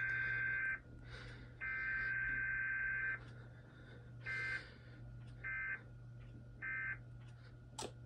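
Emergency Alert System SAME digital tones: harsh, buzzy two-tone data bursts of a Required Weekly Test. One burst ends just under a second in and another lasts about a second and a half, then three short bursts about a second apart, the pattern of the end-of-message code, over a steady low hum.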